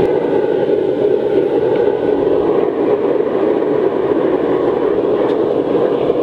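Forced-air waste oil burner firing hard into a furnace: a loud, steady rush of blown flame and air.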